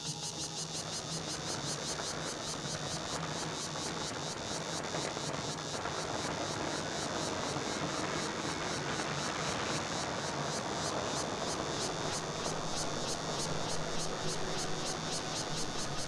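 Insects calling in a fast, even pulse, high-pitched and unbroken, over a steady low hum and a wash of background noise.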